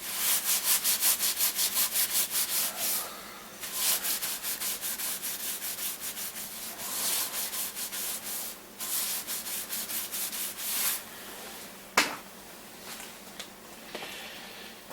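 Fast back-and-forth hand scrubbing on the painted body of a Boxford lathe, rubbing oil stains off with a slightly abrasive cleaner, about four or five strokes a second in four runs with short pauses between. A single sharp click near the end.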